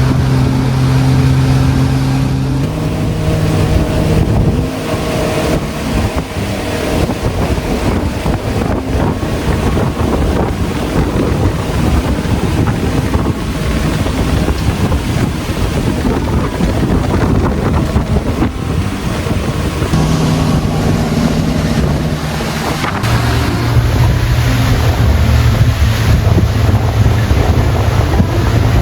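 Tour boat's motor running under way with a steady low drone, its pitch shifting a few times. Wind buffets the microphone over the rush of water.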